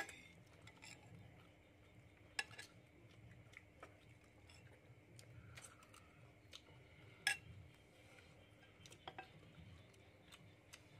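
Metal spoons clinking and scraping against ceramic plates and bowls as people eat: scattered sharp clinks, the loudest right at the start, about two and a half seconds in and about seven seconds in.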